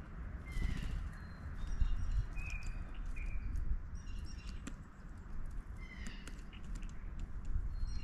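Blue jays giving short calls several times, mixed with scattered sharp clicks and low thumps.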